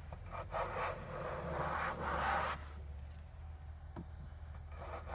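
A board's edge being jointed by hand: two rubbing, scraping strokes of wood, about a second apart, followed by fainter scraping.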